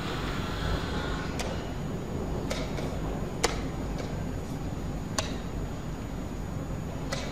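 Steady low hum and hiss of a quiet hall, with about six short, sharp clicks spread through it, the loudest a little past the middle.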